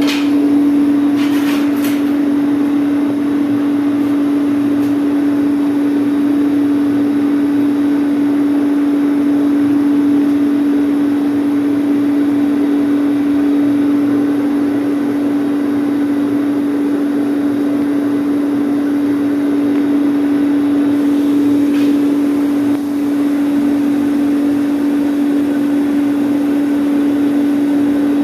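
Steady motor hum with a rush of air, typical of an electric blower forcing air into a coal furnace melting silver.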